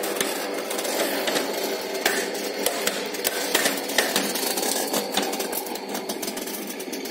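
Motorised aluminium exterior roller shutter unrolling downward: the tubular motor runs while the slats clatter and click irregularly as they pay off the roller tube. It runs smoothly and evenly, the sign that the repaired slat hangers now hold the curtain so that it rolls straight and no longer jams.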